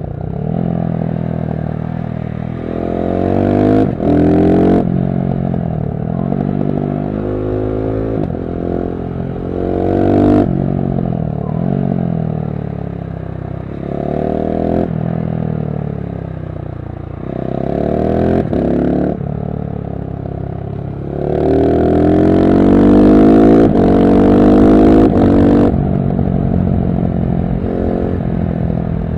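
KTM 690 SMC-R's single-cylinder engine through a LeoVince One Evo slip-on exhaust, accelerating hard through the gears. The exhaust note climbs in pitch, breaks off briefly at each upshift or roll-off with a sharp crack, and climbs again, over and over.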